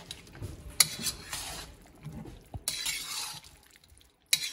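Metal spatula stirring vegetable Manchurian balls and thick gravy in a metal wok: three short bouts of scraping against the pan, the first opening with a sharp clank.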